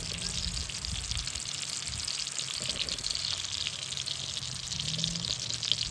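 Water running or trickling steadily: an even, crackly hiss.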